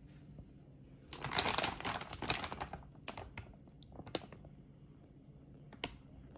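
Plastic rotisserie-chicken bag crinkling and rustling as it is pulled open, a dense crackling for a second or two, then a few single crackles.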